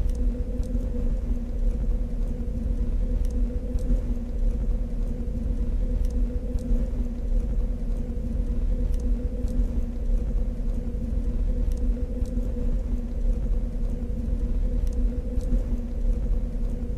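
Sci-fi lair background ambience: a steady, deep rumble with a constant low machine hum, and faint scattered ticks on top.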